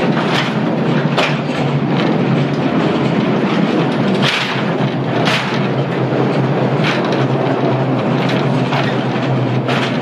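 Mine train rolling along its rails through a rock tunnel: a steady low rumble broken by irregular sharp clacks, the loudest a little past four seconds in.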